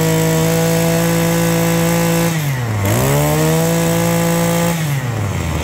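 Maruyama 26cc brush-cutter engine revved high and held steady on the throttle. About two and a half seconds in, the revs drop briefly and pick straight back up, then fall back toward idle near the end.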